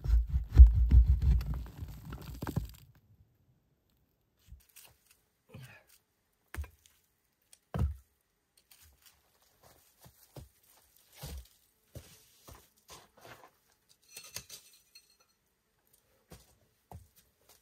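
Hands-on building work: dense low thuds and scraping for about the first three seconds, then scattered single knocks and clicks with quiet gaps between them.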